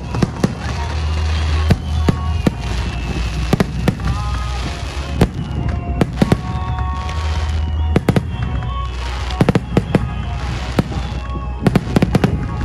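Fireworks bursting: a rapid run of sharp bangs and crackles, bunched most thickly in the last few seconds, with music playing underneath.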